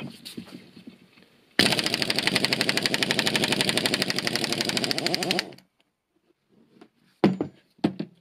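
A 3/4-inch impact wrench with a 41 mm six-point socket hammers rapidly for about four seconds, loosening a right-hand-thread nut on a transmission shaft, then stops. A few short metal clicks follow near the end as the socket and nut are handled.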